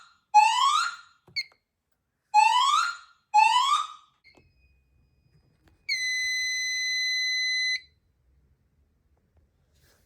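Fire alarm system sounding a rising whoop tone, about one sweep a second, which stops about four seconds in. A steady high beep follows for about two seconds.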